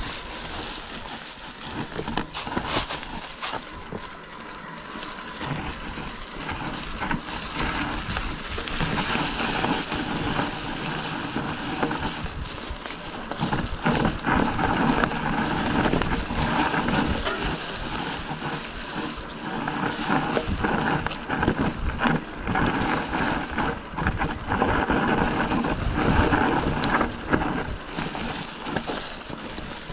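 Wind buffeting a moving camera's microphone during a ride, with frequent short knocks and rattles from rough ground. It gets louder about halfway through.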